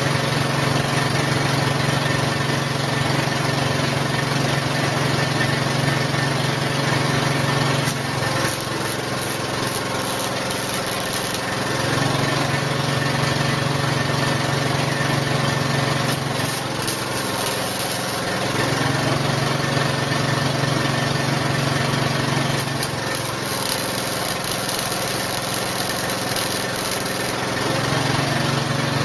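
A steady motor hum from metalworking in a steel shop. Three times its pitch sags for a few seconds as load comes on, then recovers, with a hissing rasp over it while the load is on.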